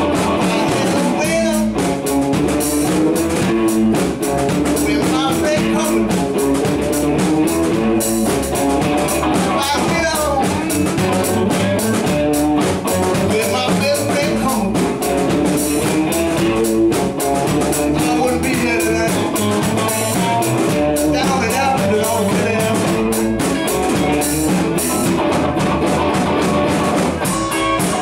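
Live electric blues band playing: electric guitars and a drum kit, with a man singing into a microphone.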